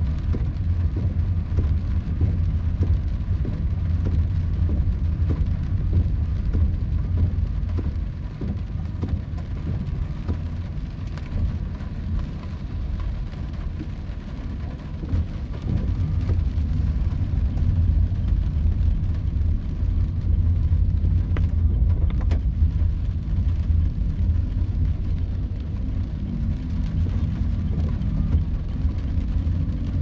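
Inside a car driving in heavy rain: a steady low rumble of engine and tyres on the wet road, with rain hitting the car's body and windshield. Music fades in near the end.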